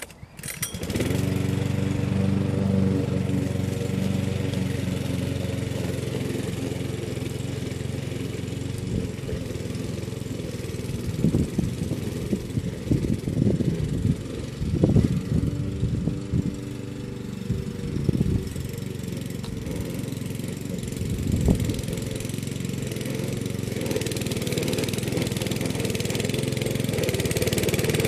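Petrol walk-behind lawn mower engine starting about half a second in and then running steadily. Irregular short thumps sound over it in the middle stretch.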